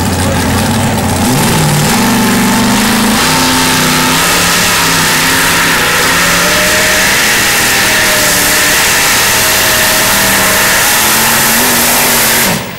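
Modified pulling tractor's supercharged engine at full throttle pulling the sled. The engine revs up in the first second or two, then holds a high, fairly steady run, and cuts off abruptly near the end.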